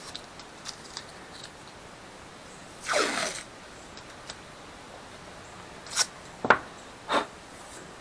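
A short ripping sound about three seconds in, like tape being pulled off a roll to redo a deformed strip, then three sharp clicks or taps from handling tools and the part.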